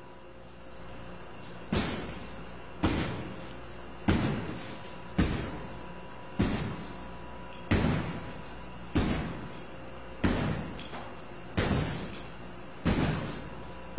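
Repeated heavy blows against a cracked glass door held together by safety window film: about ten thuds, one every second and a bit, each dying away briefly. The glass does not fall out and there is no sound of it breaking.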